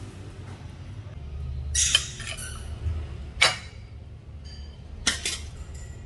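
Spatula scraping and clinking as stir-fried ginger and pork is served from a wok onto a plate. There are three short scrapes and clinks, about two, three and a half, and five seconds in.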